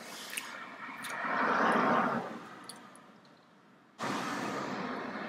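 A vehicle passes by outside, its noise swelling and fading about a second in, with a few light clicks. About four seconds in, steady traffic noise starts abruptly.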